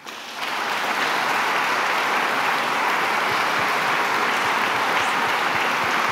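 Audience applauding: the clapping swells in within the first half second and then holds steady and dense.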